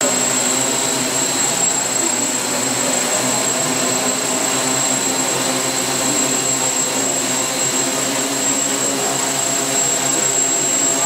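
Hexacopter's six electric motors and propellers spinning at a steady speed, a continuous whirring with a thin high whine on top.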